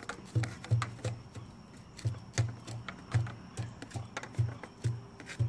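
Homemade PVC potato-gun barrel being loaded: a rhythmic run of hollow thumps, about two to three a second, each with a sharp click, as a potato is worked down the pipe.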